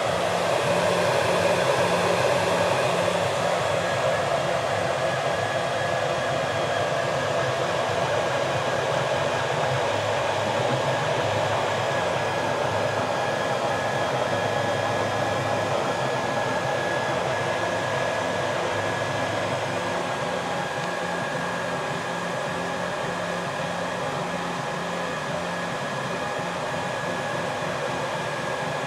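Home-built mini 3D printer running mid-print: cooling fans whir steadily, while the stepper motors hum in tones that keep shifting pitch as the print head and bed move.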